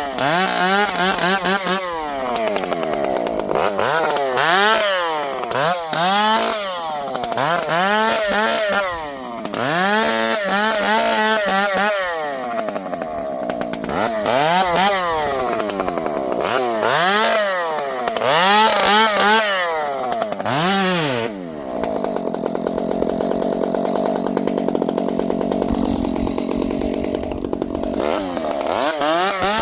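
Two-stroke Dolmar chainsaw revving up and dropping back again and again as it makes short cuts through limbs and trunk. About 21 seconds in it settles into several seconds of steady running, then revs up again near the end.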